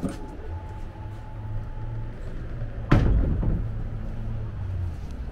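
A single loud knock or bang about three seconds in, ringing on for a moment, over a steady low hum.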